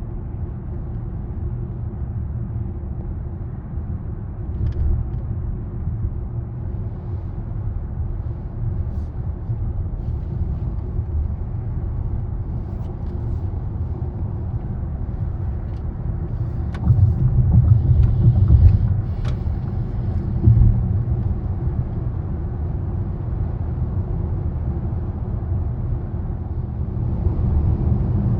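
Wind buffeting the microphone: a steady low rumble that swells with a stronger gust about seventeen seconds in.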